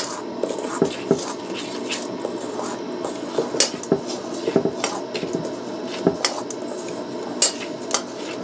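A metal spoon stirring dry flour in a stainless steel mixing bowl, scraping and clinking irregularly against the bowl's sides.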